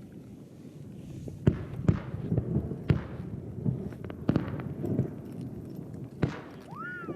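Aerial fireworks bursting: a run of about six sharp bangs at irregular intervals, some followed by crackling. Near the end a short whistle-like tone rises and then falls.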